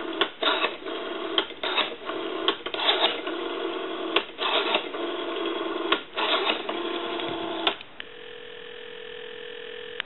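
Dial tone from a Western Electric 500 rotary desk telephone while its rotary dial is turned and let run back, with short clicks breaking the tone again and again. A little before the end the dial tone cuts off and a quieter steady tone follows as the number is put through.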